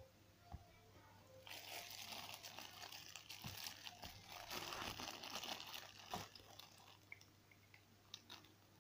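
Clear plastic bag crinkling and crackling as it is handled for about five seconds, followed by a few light plastic clicks near the end.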